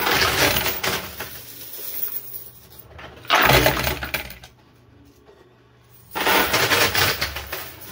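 Quarters clattering on a coin pusher machine in three jingling bursts, each about a second long and about three seconds apart.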